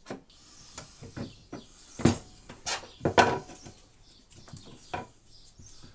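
Irregular knocks and clicks from a metal drawer slide rail and wooden cabinet parts being handled and set in place, with the loudest knocks about two and three seconds in.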